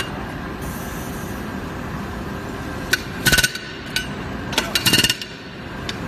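Pneumatic pick ramming refractory castable into a blast furnace iron runner, firing in two short bursts of rapid, metallic-ringing blows, about three seconds in and again near five seconds, over steady background noise.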